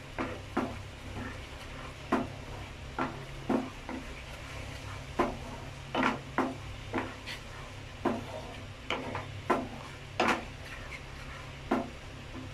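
A spatula stirring thick barbecue sauce in a nonstick pan, knocking and scraping against the pan about once a second, over a low steady hum.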